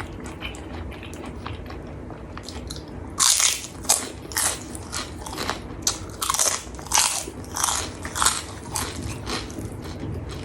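Close-up mouth sounds of eating crunchy kerupuk kulit (beef-skin crackers) with rice. Soft chewing gives way about three seconds in to a run of loud crisp crunches, roughly two a second.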